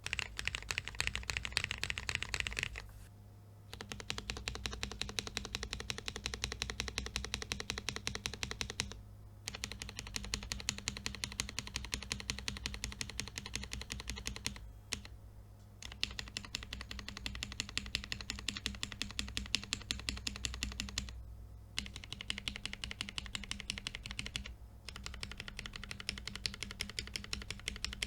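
Fast typing on a mechanical keyboard with Cherry MX Black Hyperglide linear switches and POM keycaps, rapid keystroke clacks in runs of several seconds broken by brief pauses.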